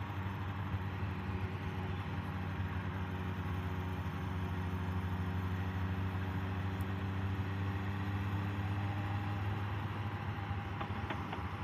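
Motorcycle engine running at a steady, even pitch under a constant rush of wind and road noise.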